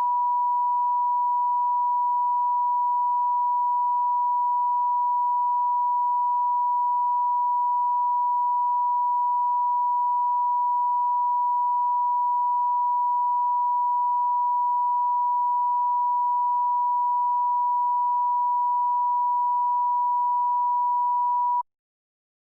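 Line-up tone: a steady 1 kHz sine test tone, held at one level and pitch, that cuts off abruptly near the end.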